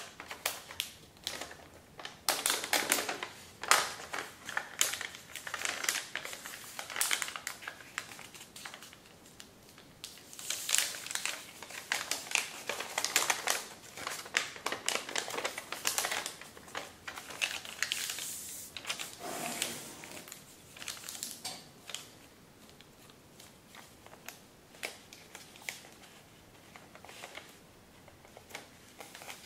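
A sheet of thin Kami origami paper being folded and creased by hand, crinkling and crackling in quick irregular bursts as flaps are lifted and pressed flat. The crinkling is busiest through the first two-thirds and grows sparser and quieter near the end.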